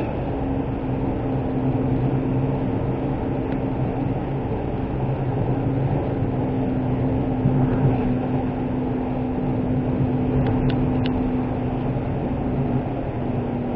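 Suzuki Wagon R's 660 cc three-cylinder engine and tyre noise heard from inside the cabin while cruising, a steady drone with a constant engine hum.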